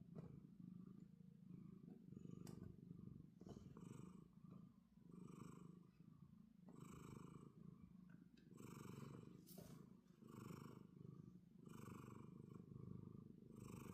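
Domestic cat purring quietly and steadily, the purr swelling with each breath about every one and a half to two seconds.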